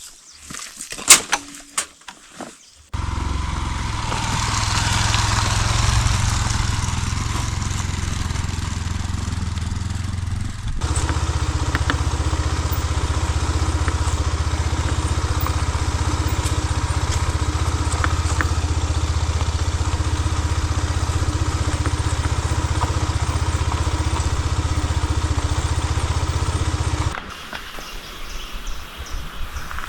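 Benelli TNT 25 motorcycle engine running steadily. It starts abruptly about three seconds in after a few faint clicks, changes note about eleven seconds in, and cuts off near the end, leaving quieter outdoor background sound.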